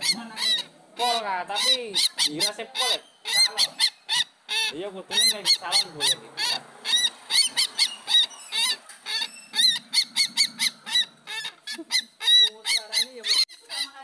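Sintar rails calling: a fast, unbroken series of short, harsh notes, several a second, some with a bending, arched tone.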